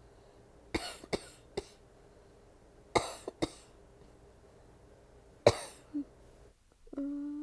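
A woman coughing from a nasty cold in short fits: three quick coughs about a second in, two more around three seconds, then one loud cough at about five and a half seconds. Near the end a short held voice sound.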